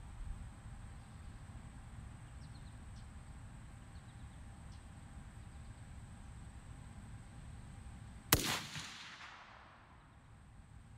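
A single rifle shot from a Mossberg MVP LC bolt-action rifle in 6.5 Creedmoor, about eight seconds in, its report echoing and fading out over a second or so. Before the shot there is only a low steady rumble.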